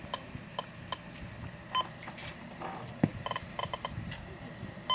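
First Alert WX167 weather radio giving short electronic beeps at irregular intervals, some in quick pairs, as its buttons are pressed. A single click sounds about three seconds in.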